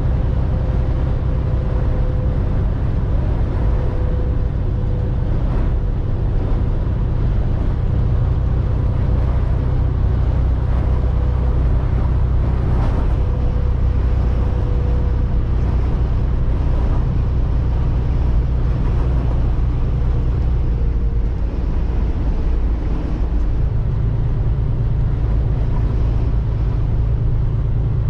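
Semi truck's diesel engine running steadily at highway speed, heard inside the cab with road and wind noise; the engine note changes near the end.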